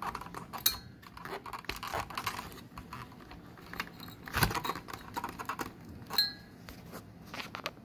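Scattered plastic clicks and knocks from working the clipped power and SATA plugs off a hard drive inside a DVR box, with three sharper clicks spread through.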